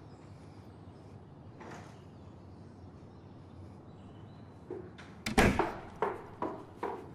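Quiet room tone, then a door shuts with a loud bang about five seconds in, followed by a string of sharp knocks about two a second.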